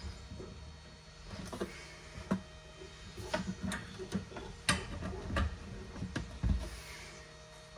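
Irregular light clicks and knocks of copper pipework being handled and pushed into place by hand, with small scrapes in between.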